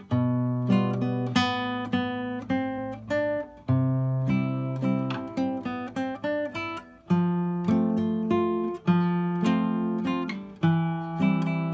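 Solo classical guitar with nylon strings, playing a melody in single plucked notes over held bass notes in a steady, even rhythm.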